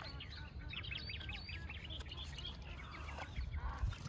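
Birds calling, a dense chatter of many short overlapping calls, over a low rumble.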